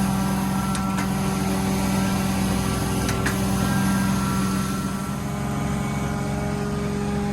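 Carpet cleaning machine running steadily with a strong low hum, with two short clicks about one and three seconds in.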